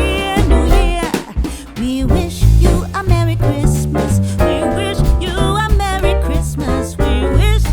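Background music: an upbeat Christmas song, a wavering melody over a stepping bass line.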